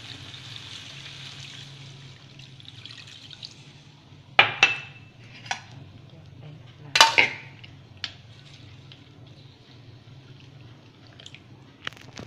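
Water poured from a jug into a stainless steel pan of marinated fish, a steady hiss for about three seconds. Then several sharp clinks of utensils on the pan, the loudest two about four and a half and seven seconds in.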